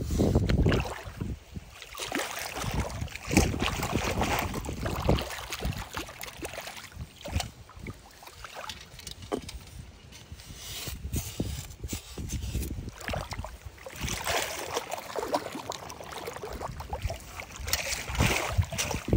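A long-handled perforated metal sand scoop is pushed into wet sand under shallow river water and lifted, with water sloshing and splashing around it in irregular bursts. Low gusts of wind hit the microphone now and then.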